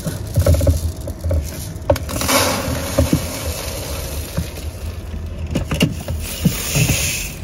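Milled rice handled in the stainless steel mesh basket of a home rice milling machine: scattered knocks and clicks of metal against metal and plastic, with a rushing hiss of rice grains sliding and pouring about two seconds in and again near the end.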